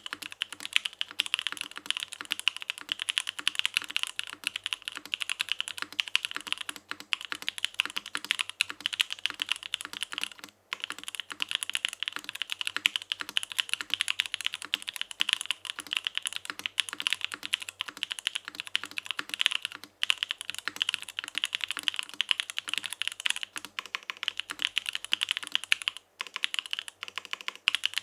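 Typing on a Mode Sonnet mechanical keyboard with stock Gateron Cream Soda linear switches, a carbon fiber plate in an isolated top mount, and GMK keycaps. Fast, continuous keystrokes in a dense clatter, broken by brief pauses about ten, twenty and twenty-six seconds in.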